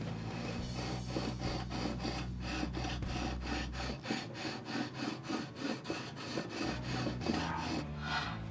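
Long flat fret-levelling beam scuffed in quick back-and-forth strokes, about three a second, over the marker-coloured frets of a 1965 Höfner 500/1 violin bass. The scuff shows which frets sit high and which sit low before levelling.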